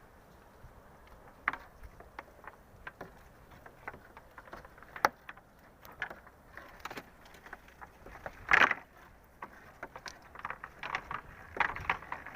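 Irregular small clicks and knocks, with one louder clatter about eight and a half seconds in.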